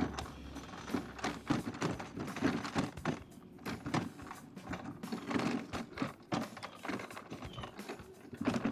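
Pride Baja Bandit electric mobility scooter driving over bumpy grass on solid tires: irregular clattering and knocking of the scooter as it jolts over the bumps.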